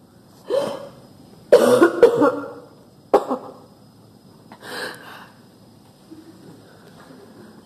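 A person coughing and clearing the throat in a few separate fits, the loudest a double cough about one and a half seconds in.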